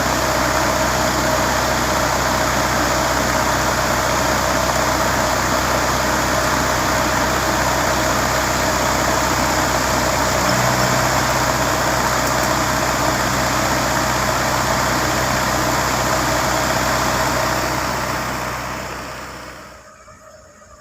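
Heavy diesel engine of a large Hitachi mining excavator running steadily, mixed with broad machinery noise; it fades out near the end.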